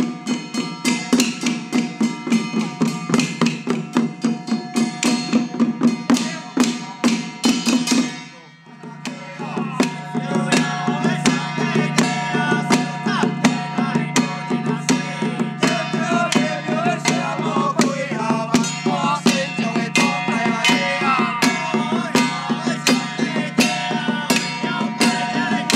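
Temple-procession percussion: long-handled hand drums and small hand gongs beaten in a fast, steady rhythm, the gongs ringing on. About eight seconds in, the sound breaks off briefly and resumes, now with a wavering melody over the beat.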